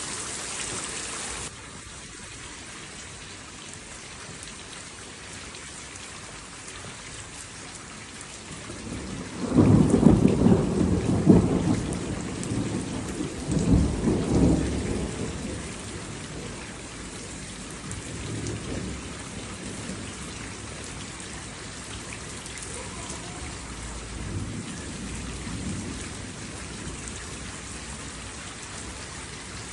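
Steady rain with a long roll of thunder: the rain's high hiss drops suddenly soon after the start, then a rumble builds about nine seconds in, peaks twice over the next several seconds, and dies away into fainter rolls.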